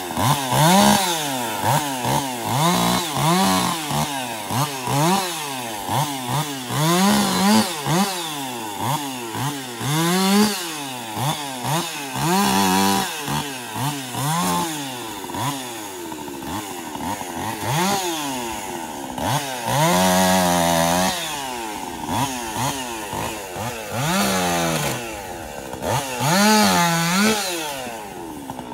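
Woods-ported Jonsered 2156 two-stroke chainsaw revving up and down again and again, its pitch rising and falling about every two seconds.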